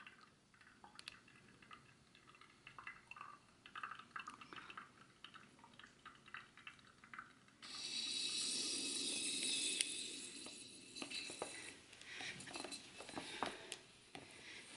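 Faint trickling and dripping of coffee from a hand-pressed AeroPress-style brewer into a glass mug as the plunger is pushed down. About halfway through, a steady hiss starts suddenly and lasts about three seconds: air being forced through the coffee grounds and filter at the end of the press. Faint trickling follows.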